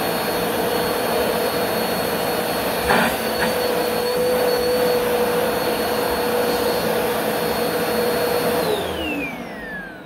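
Bagless upright vacuum cleaner running with a steady whine, with a single knock about three seconds in. Near the end it is switched off and the motor winds down, its pitch falling as it fades.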